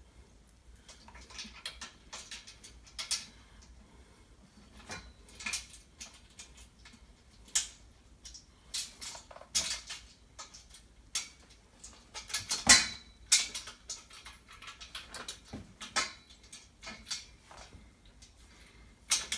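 Irregular metallic clicks and clinks of bolts, washers and steel rack parts being handled and fitted, with one louder clank about two-thirds of the way through.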